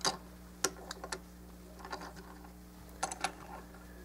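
Small plastic Micromaster Transformers toy figure handled and set down on a tabletop: a few light plastic clicks and taps, the sharpest at the very start and a short cluster about three seconds in.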